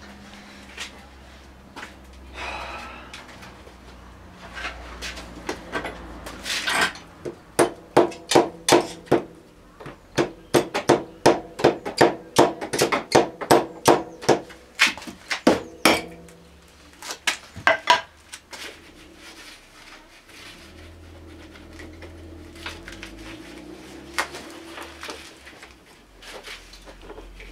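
A quick run of sharp knocks on the scooter engine's parts, about three a second for several seconds, then a few single knocks after a short pause. Between them there are quieter handling and scraping noises.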